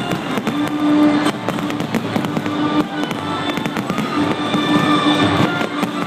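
Fireworks going off in rapid succession, many bangs and crackles, over music playing on loudspeakers.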